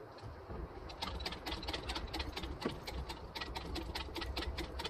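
Rapid, uneven metallic clicking and rattling from a hydraulic engine hoist lifting an outboard power head off its midsection, starting about a second in, over a low rumble.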